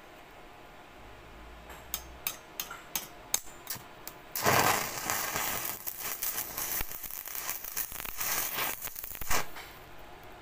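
Stick (arc) welding on mild-steel rebar: a run of sharp clicks as the electrode is struck against the steel, then the arc catches about four seconds in and crackles for about five seconds before cutting off.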